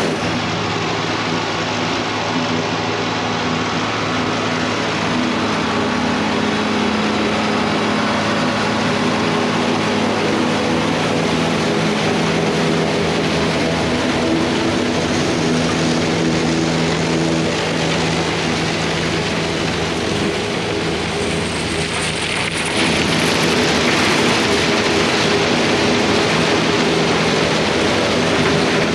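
Diesel tractor engine running steadily while driving silage machinery, a constant hum under a broad hiss. About 23 seconds in the sound shifts and grows louder.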